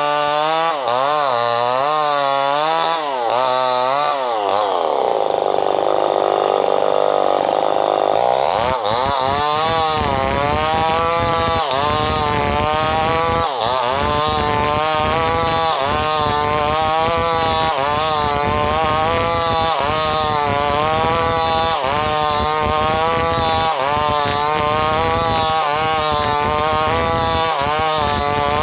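Chainsaw running hard while ripping wood into boards, its engine pitch rising and falling with each forward-and-back push of the bar. The engine sags about five seconds in and climbs back up near nine seconds, then keeps wavering.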